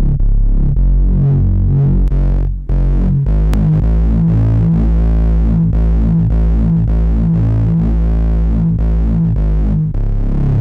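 Instrumental music with no vocals: a heavy, distorted bass line over a very deep sustained low end, playing a steady rhythmic pattern, with a brief drop-out about two and a half seconds in.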